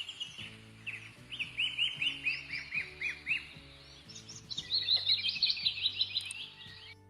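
Songbird chirping in quick runs of short downward-sweeping notes over soft music with sustained low notes; it all cuts off suddenly near the end.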